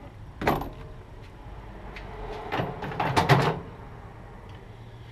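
An LS V8's engine cover being lifted off and handled: a short scrape about half a second in, then a cluster of scrapes and knocks around three seconds in.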